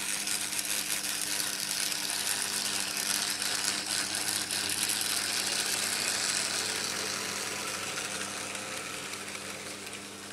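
Märklin H0 model train running past on vintage M-track: metal wheels rattling over the stamped steel rails with a fast, fine ticking. It grows louder to a peak about halfway and then fades as the train passes, over a steady electrical hum.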